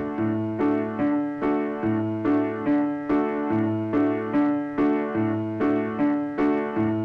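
Repetitive keyboard music: a short figure of struck piano-like notes, about two or three a second, looping over and over above a recurring low bass note.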